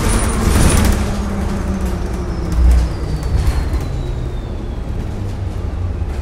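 Cabin sound of a 2018 New Flyer XDE40 hybrid-electric bus under way: a steady low rumble, with a high electric whine from its BAE Systems series-hybrid drive falling steadily in pitch. A heavy low thump comes a little under halfway through.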